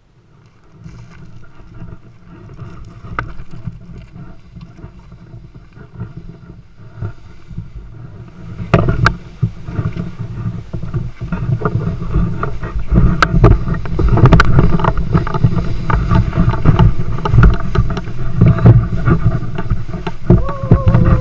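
Wind buffeting the microphone of an action camera on a pole during paraglider flight: a deep, rumbling rush. It starts faint and grows much louder about eight seconds in, with a few sharp knocks.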